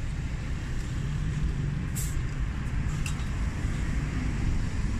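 Steady low rumble of street traffic, with two brief high ticks about two and three seconds in.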